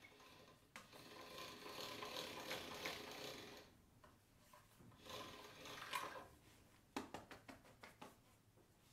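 Hand-cranked roller pasta machine turning, faint gear clicking and rattling as a sheet of noodle dough is rolled through, in two spells. Near the end, a run of soft pats as a cloth pouch of cornstarch is dabbed onto the dough sheet.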